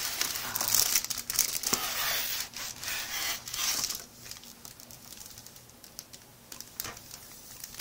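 Crinkly packaging being handled and pulled open by hand, rustling and crackling for about four seconds, then fainter handling with one short sharp sound near the end.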